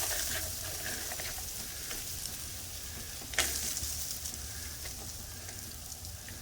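Steady sizzling hiss of freezing precipitation pattering on ice-coated leaves and branches, with a single sharp click about three and a half seconds in.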